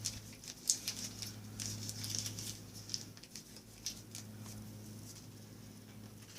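Chewing: irregular wet smacks and mouth clicks of someone eating food, thinning out about four seconds in, over a steady low electrical hum.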